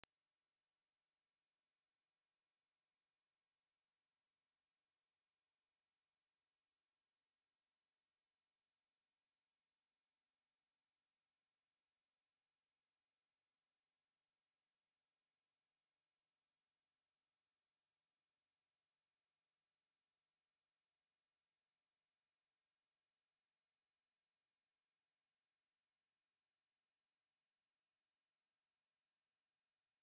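A steady, high-pitched pure sine tone at 11,772 Hz, a synthetic test tone held at one pitch and level, used for testing speakers and for shaking water and dust out of them.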